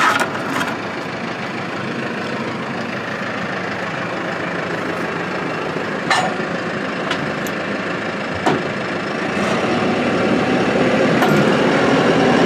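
Tractor engine running as the tractor backs up and pulls a chain tight to spring a bent scraper sideboard back into line, getting louder over the last few seconds as it takes the strain. A few sharp clicks, near the start and twice later on.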